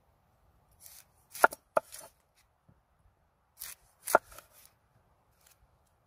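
A curved chopping knife slicing through an onion onto a wooden cutting board, in two bouts of cutting, about a second in and near four seconds, with a few sharp knocks of the blade on the board.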